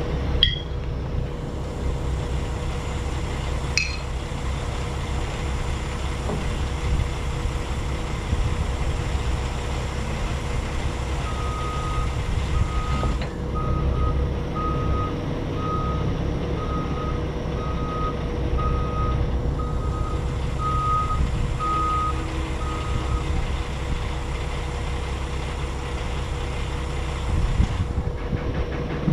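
A vehicle's reversing alarm beeping at one steady pitch, about once a second, for some twelve seconds in the middle, over the steady low rumble of an engine running.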